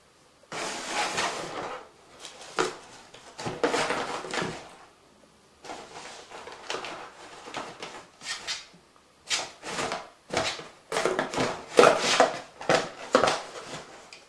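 Paper gift bag and thin plastic sheeting rustling and crinkling in irregular bursts as kittens pounce on, paw and climb into them. The bursts come in clusters, the densest and loudest in the last few seconds.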